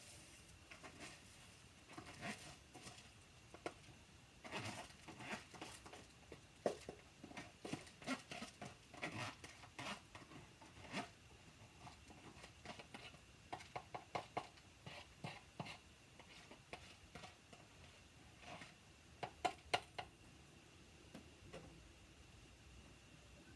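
A spatula scraping rice out of a bowl into a cooking pot: irregular scrapes, clicks and soft patter of grains, with a few sharper taps on the bowl or pot rim. The sounds stop a couple of seconds before the end.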